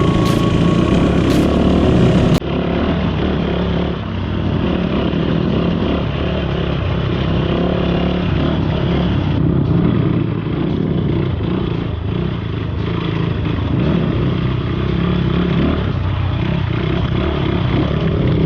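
Off-road motorcycle engine running steadily under way on a dirt trail, mixed with wind and trail noise. The sound changes abruptly about two seconds in, dropping a little in level and losing its highest pitches.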